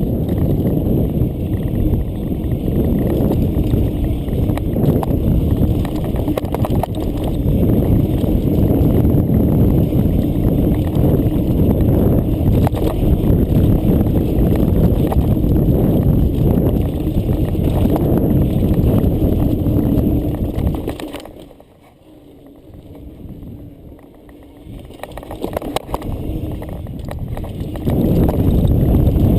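Mountain bike riding over rocky cobbles: a dense, loud rumble and rattle with scattered sharp knocks from the wheels and frame hitting rock. About 21 seconds in it goes much quieter for a few seconds, then builds back up.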